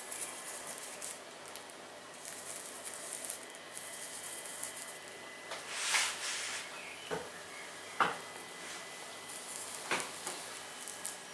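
Fingertip dragging through a thin layer of uncooked rice grains on a plastic tablecloth: a faint grainy rustle, with a handful of louder, short scrapes in the second half.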